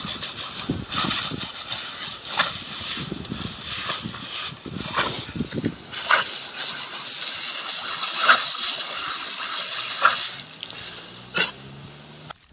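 Garden hose spray nozzle hissing while a dog bites and laps at the jet of water, with short sharp splashes every second or two. The hiss falls away near the end.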